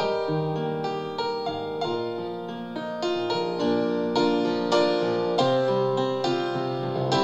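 Grand piano played solo: chords and melody notes struck two or three times a second, each left to ring and fade.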